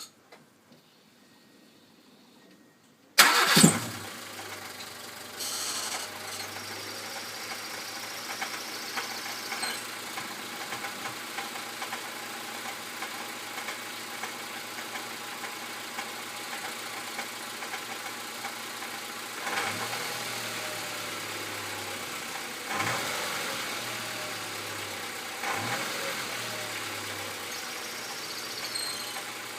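A 2001 Honda Civic's D14 four-cylinder engine starting about three seconds in and then idling steadily, with three brief swells in the sound later on. Under the idle runs a knocking rattle, heard most at low revs, which the owner hopes is coming from the alternator or its pulley.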